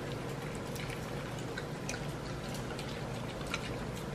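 Cavalier King Charles spaniels licking food from rubber treat cups: faint, irregular wet licking clicks over a steady low hiss.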